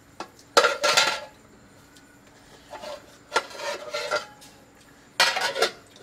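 Metal pot lids and pots clanking and clattering as a toddler handles them, in three spells: about half a second in, around three to four seconds in, and near the end.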